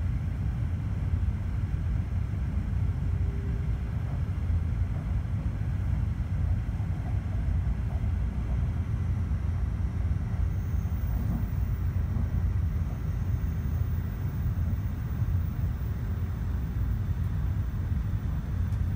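Cabin noise inside a moving Joetsu Shinkansen train: a steady low rumble, with a faint steady hum joining in for several seconds around the middle.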